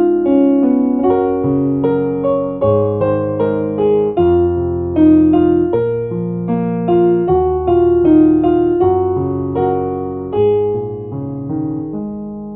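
Background music: a piano or electric-piano melody played over chords, the notes struck and decaying.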